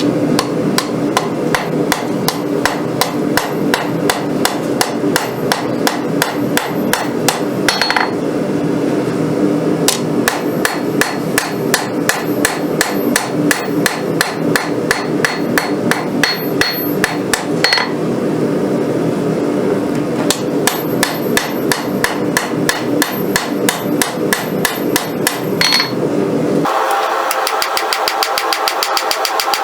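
Hand hammer striking a hot rail-spring-steel blade on an anvil, about three blows a second in three runs, while the blade's profile and bevels are being forged. Each run ends with a brief ring, and a steady hum runs beneath the blows. Near the end the hammering stops and a different steady mechanical buzz with rapid ticking takes over.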